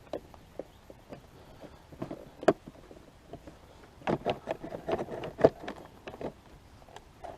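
A three-wheeled motorcycle's body panel being handled and pressed into place: scattered clicks and knocks, a sharp knock about two and a half seconds in, then a quick run of knocks and rattles a little past the middle.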